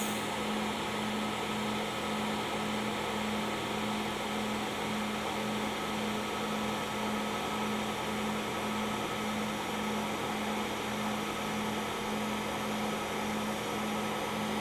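TIG welding arc on thin stainless steel, run with no pulse: a steady hiss with an even low hum underneath.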